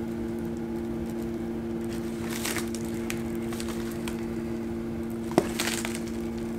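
Fingers digging through a plastic tub of loose rotting-wood and coconut-fibre beetle substrate, giving scattered rustles and crunches, with one sharp click a little over five seconds in. A steady low hum runs underneath.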